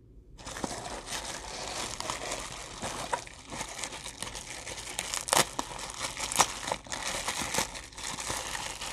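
Crinkle-cut paper shred and plastic bubble wrap rustling and crinkling under hands digging through a cardboard box and unwrapping an item, with scattered sharp crackles. It starts about half a second in.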